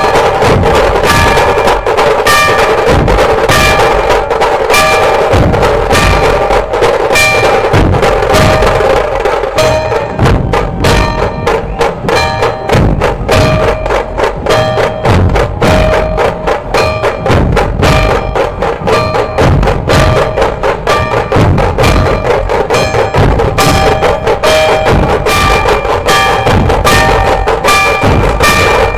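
Dhol-tasha ensemble playing a fast, dense rhythm: rapid stick strokes on tashas over deep dhol beats, with a steady ringing tone over the drums.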